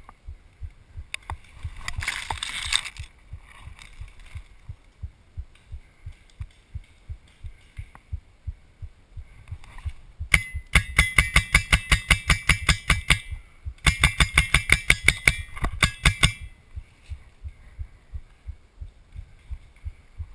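Paintball marker firing rapidly at close range: two strings of shots, about seven or eight a second, each lasting a few seconds with a brief pause between. A short rush of noise comes about two seconds in, and regular low thumps run underneath throughout.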